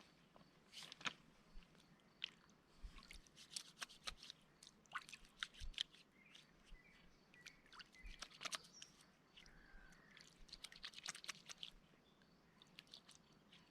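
Faint, irregular clicks and crunches scattered throughout, with a few faint, short bird chirps.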